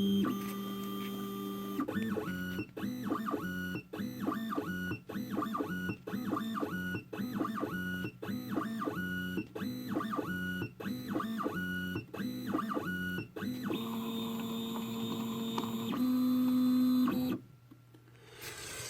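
V8X6 CNC key machine's stepper motors whining as its probe decodes the cuts of a Toyota key: a quick series of short, stop-start moves, then a longer steady whine that cuts off suddenly near the end.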